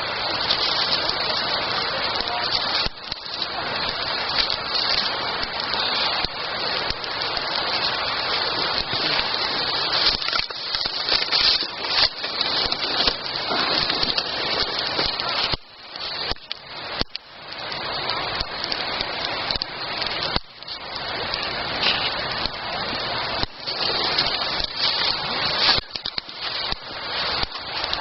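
Wood campfire burning with dense crackling and hissing, a steady noise that dips briefly now and then.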